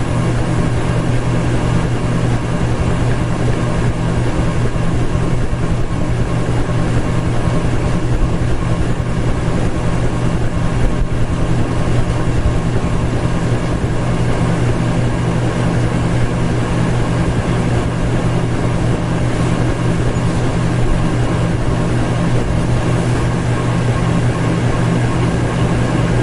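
Ceiling fan running steadily: a constant motor hum under an even rush of moving air.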